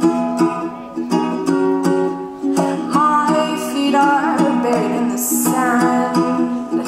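A woman singing to her own strummed ukulele, the strums keeping a steady rhythm; her voice comes in about two and a half seconds in and glides between notes.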